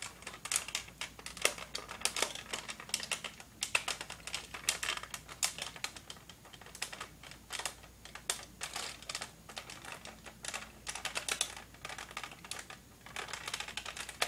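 Hard plastic parts of a toy robot clicking and clattering in the hands as they are handled and fitted together: a quick, irregular run of clicks and taps.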